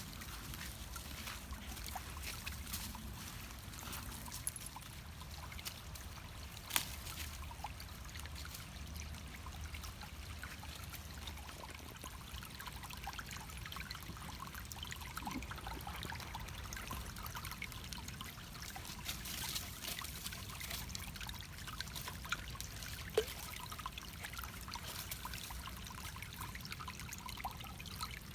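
Shallow creek water trickling and burbling over stones, a steady stream sound with two sharp clicks about 7 s and 23 s in.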